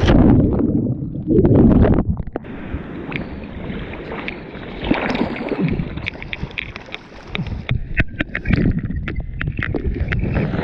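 Breaking surf and whitewash rushing and splashing over an action camera. The water hits hardest in the first two seconds and again about halfway through, with wind buffeting the microphone and many sharp clicks and pops from the water against the camera.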